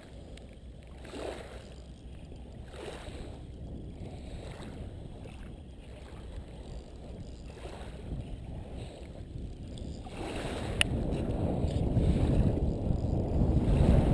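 Wind rumbling on the microphone over lapping shore water. It grows louder about ten seconds in, and there is one sharp click shortly after.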